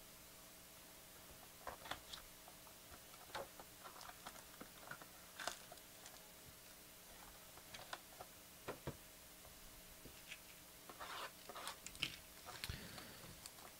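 Faint crinkling and scattered light clicks of plastic shrink wrap being torn and peeled off a sealed trading-card box.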